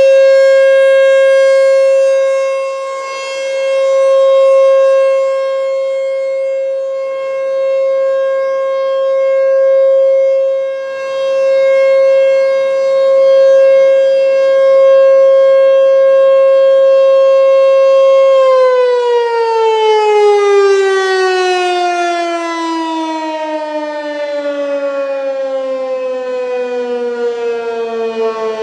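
American Signal T-128 electromechanical warning siren sounding one steady tone, its loudness swelling and fading every few seconds as the rotating head sweeps past. About two-thirds of the way through it is switched off and winds down, the pitch sliding steadily lower.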